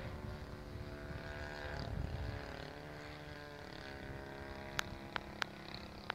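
Engine of a radio-controlled model Dormoy Bathtub droning steadily as the plane flies high overhead, its pitch stepping down slightly about four seconds in, with wind rumbling on the microphone. A few sharp clicks come near the end.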